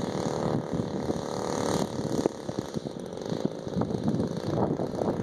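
Single-cylinder two-stroke NGH 35cc gas engine of a giant-scale Piper Cub model plane running in flight, with wind buffeting the microphone.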